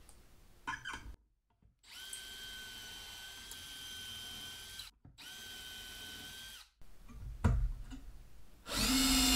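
Milwaukee cordless drill spinning a self-centering Vix bit to pre-drill pilot holes for drawer-slide screws: two steady high whines of about three and two seconds. Near the end a second cordless drill-driver starts, louder, driving a screw into the slide.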